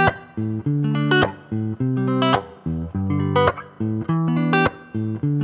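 Instrumental music: plucked guitar and bass playing a short riff that repeats about once a second.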